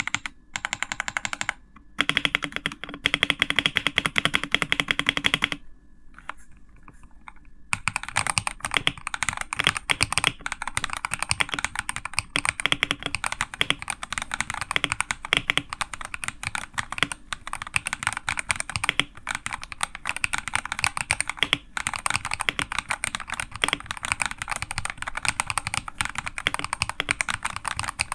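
Typing on a Redragon TS68 mechanical keyboard: a rapid, continuous clatter of keystrokes, which goes quieter for a couple of seconds about six seconds in.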